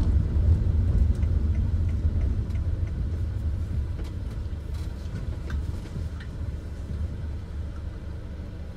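Mercedes Sprinter van heard from inside the cab: a low engine and road rumble that fades steadily as the van slows to a stop, with a few faint clicks over it.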